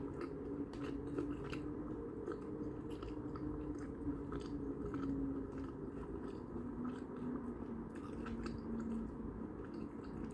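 Close-up chewing and mouth sounds of a person eating, with many small irregular clicks and soft crunches. A faint steady hum lies underneath.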